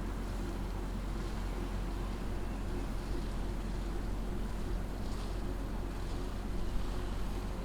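Outdoor ambience: a steady low rumble with faint hissing swells now and then.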